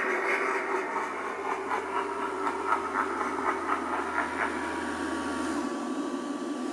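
Spirit Halloween Harvester of Souls animatronic's motor running as the prop moves: a steady hum with rapid clicking, about five clicks a second, through the middle.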